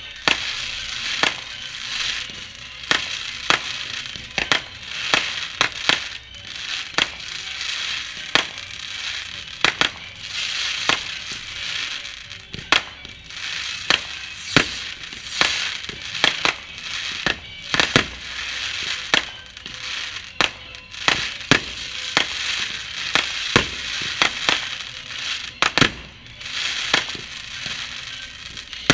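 Fireworks going off: irregular sharp bangs and cracks, about one or two a second, over a continuous crackling hiss that swells and fades.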